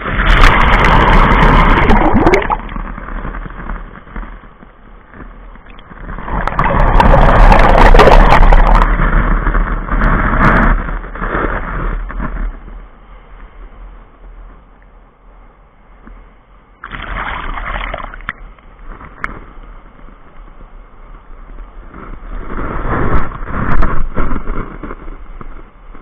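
Sea waves washing up the beach onto a camera set low on the wet sand: four loud rushes of foaming water, the first washing right over the camera, with a softer wash of surf between them.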